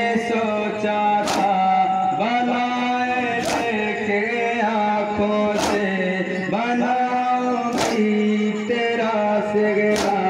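A group of men chanting a noha lament in unison, holding long notes, with a sharp, loud slap of unison chest-beating (matam) about every two seconds.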